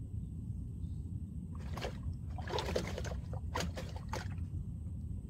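Small splashes and sloshes of water in a short cluster from about one and a half to four seconds in, over a steady low rumble.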